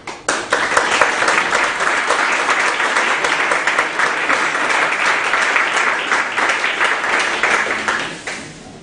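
Audience applauding at the end of a talk, starting almost at once and fading out near the end.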